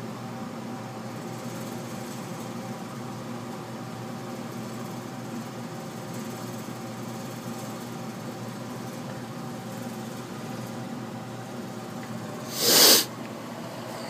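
Geothermal heat pump running with a steady hum, part way through being charged with refrigerant after its pressures read low. Near the end there is a short, loud burst of hissing noise.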